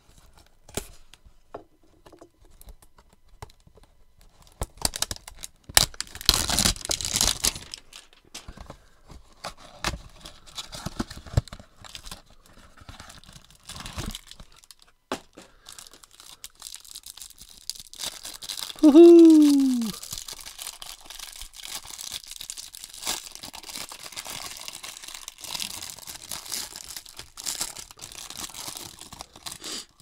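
Cardboard hanger box of baseball cards being torn open and its plastic wrapping crinkled off, with scattered rustles and clicks. Just before two-thirds of the way through, a short falling squeak is the loudest sound.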